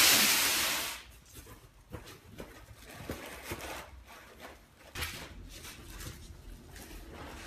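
A loud rushing hiss for about the first second, then soft rustling and scattered light clicks as two beagles nose into a cardboard box and tug at plastic wrapping on a tiled floor.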